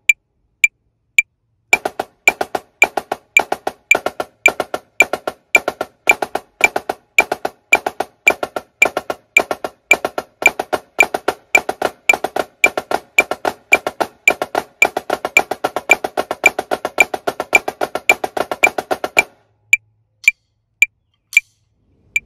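Marching snare drum playing a flam taps breakdown exercise at 110 beats per minute over a steady metronome click. The drumming starts about two seconds in and stops about three seconds before the end, leaving the metronome clicking on alone.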